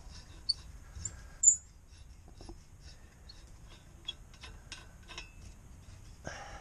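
A nut being turned by hand on the threaded end of a boat's propeller shaft: scattered light metallic clicks and scrapes, with a few brief high-pitched chirps, the loudest about one and a half seconds in.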